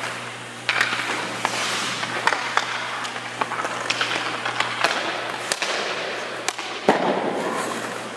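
Ice hockey skates scraping and cutting on rink ice as a goalie drops, recovers and shuffles, with scattered sharp clacks of stick, pads and pucks echoing in the rink. A steady low hum stops about five and a half seconds in.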